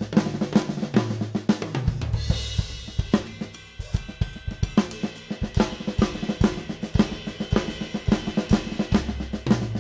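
Drum kit played fast with flam and triplet sticking figures moving around the snare and toms, backed by bass drum. A cymbal crash comes about two seconds in and rings under the strokes for several seconds.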